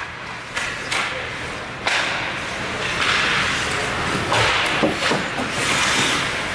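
Ice hockey play close to the boards: skate blades scraping the ice, with several sharp clacks of sticks and puck.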